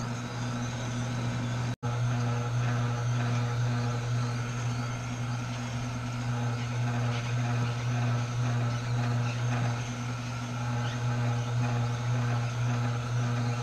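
Tribest Green Star Elite twin-gear juicer running with a steady low hum as produce is pushed down through it with the plunger. The sound drops out for an instant about two seconds in.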